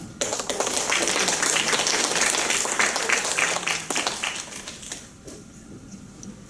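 Audience applauding; the clapping starts abruptly and dies away about five seconds in.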